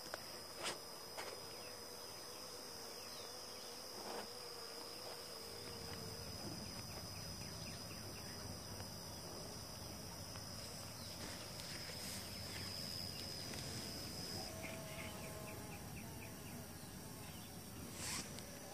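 Faint buzzing of honeybees around an open hive, with a steady high-pitched insect call in the background that stops about three-quarters through. A light knock near the end.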